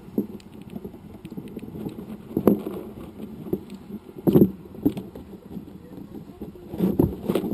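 Handling noise from a Cabrinha 2014 kite bar's lines and plastic safety release being worked by hand while a knot is tied in the release elastic: soft continuous rustling of line, with a few brief louder knocks about two and a half, four and a half and seven seconds in.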